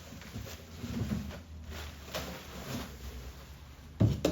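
Unboxing parts being handled and moved: soft rustles and light knocks of packaging, with a sharper knock near the end as a part is set down.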